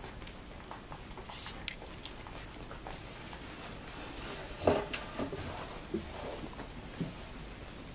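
Two-week-old Labrador retriever puppies scuffling and nursing on towels, with soft rustles, small grunts and squeaks, and a few light knocks; the loudest is a short sound about halfway through.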